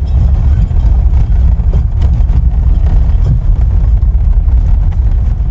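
Steady low rumble of a Jeep Wrangler JL driving on the road, with tyre, drivetrain and engine noise heard from inside the cabin.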